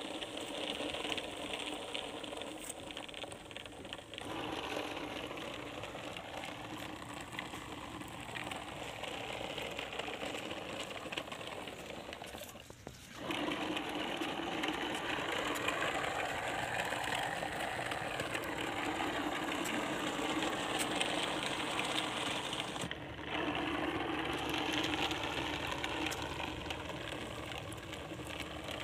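Small battery-powered DC motor of a homemade cardboard toy truck whirring steadily as it drives over concrete, its wheels and gearing rattling along. The sound breaks off briefly about halfway through and changes level where the shot changes.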